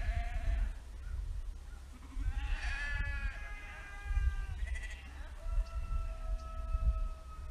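Sheep bleating several times, with a long, drawn-out bleat through the second half, over a low rumble.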